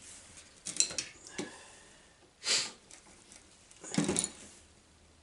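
Metal tools and parts clinking and knocking as they are handled at the start of taking a cover off: two sharp clicks about a second in, a short hiss midway, and a cluster of ringing clinks near the end.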